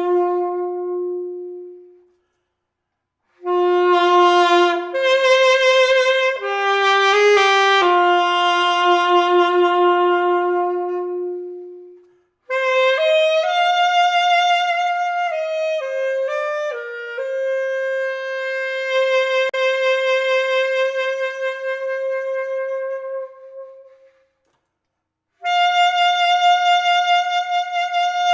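Yamaha YAS-200AD alto saxophone played solo: a slow melody of long held notes, in phrases broken by two short pauses.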